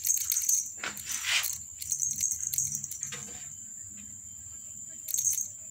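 Light jingling and clicking in quick clusters, mostly in the first three seconds and again briefly near the end, as cats bat at a feather wand toy with beads on its stick. A steady high-pitched insect drone runs underneath.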